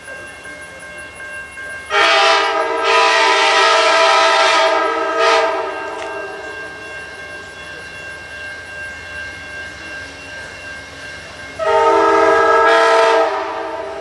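Locomotive air horn sounding several notes at once: a long blast of about three seconds, a brief toot right after it, then a second blast of about a second and a half near the end.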